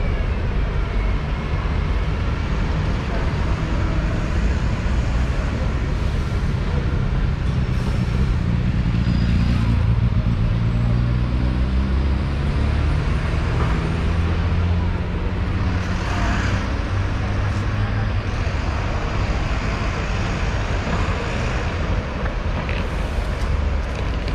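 Busy city-street traffic: double-decker buses and cars passing with a steady low engine rumble.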